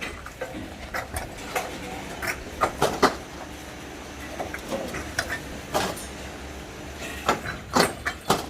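Irregular clatter of sharp knocks and clinks from hard objects striking, unevenly spaced with several louder hits near the middle and near the end, over a low steady hum.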